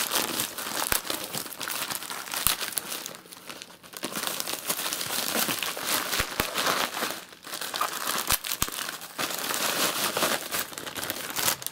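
Plastic packaging crinkling and rustling in hands as a polyethylene mailer bag is worked open and a bubble-wrapped bundle of bottles is pulled out of it. The crackle is continuous, with a few short pauses and occasional sharp clicks.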